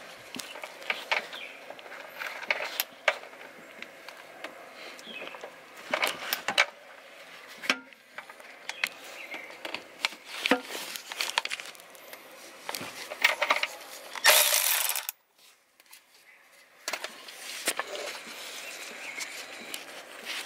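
Scattered metallic clicks and knocks of a socket tool working an oil drain plug loose on the sump. About 14 seconds in there is a loud burst of rushing noise lasting about a second.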